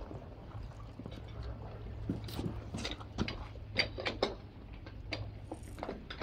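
Metal clicks and knocks of hose couplings and a hydrant standpipe being handled and fitted as a hard suction hose is connected between a fire hydrant and a fire engine's pump inlet, scattered and irregular over a low steady hum.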